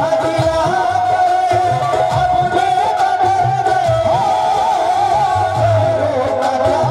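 Live qawwali music: a harmonium holds a steady note while voices sing a wavering melody over it, with a hand-drum beat underneath.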